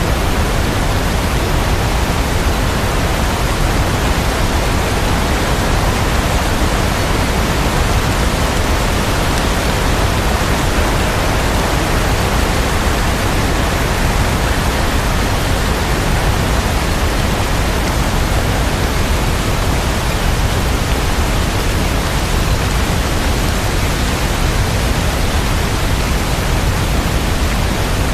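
Steady rain sound: a dense, unchanging hiss with no separate drops, thunder or music.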